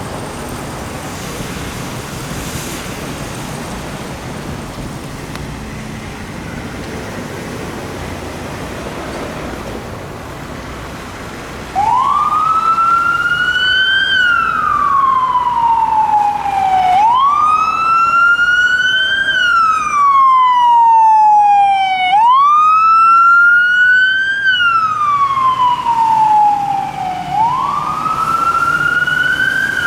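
Steady traffic noise from a snowy street, then about twelve seconds in a fire truck's electronic siren starts up loud in wail mode: each cycle jumps quickly up in pitch and slides slowly back down, about every five seconds, four times.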